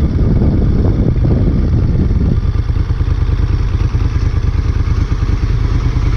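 Moto Guzzi Griso's V-twin engine running at low speed as the motorcycle rolls slowly and pulls into a parking space; the sound eases a little about two and a half seconds in.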